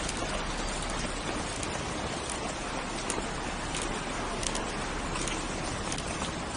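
Steady rushing wind-and-motion noise on a 360 camera's microphone carried by a runner, with a faint tap about every three quarters of a second.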